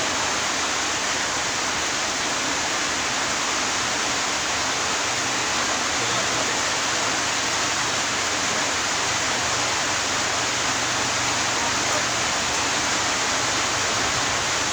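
A steady, even hiss with a faint low hum beneath it, unbroken throughout.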